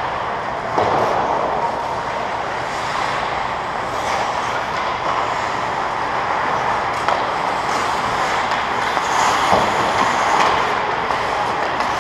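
Ice hockey rink during play: a steady rushing noise of skates on the ice and the arena, with a few faint clicks of sticks and puck.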